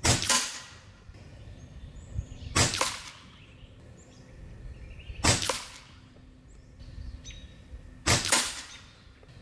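Reximex Throne Gen 2 Compact, a regulated .22 bullpup PCP air rifle, firing four shots about two and a half seconds apart, each a sharp report with a short echoing tail.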